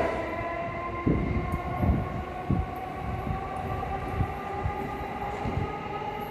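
Electric commuter train running along the platform on long welded rail: a steady whine from its motors over an uneven low rumble of wheels on track, with occasional dull thuds.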